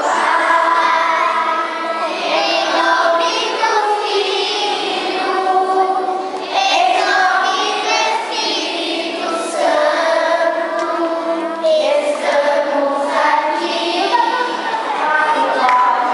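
A group of children singing a song together, many voices in unison.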